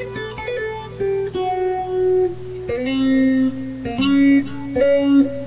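Guitar played through a vacuum tube PA amplifier and its speaker: a melodic line of single plucked notes, with a few slides up between notes.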